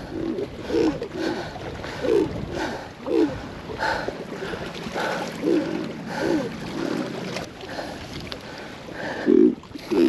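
A man breathing hard and grunting, in short voiced gasps about one or two a second, as if out of breath from exertion.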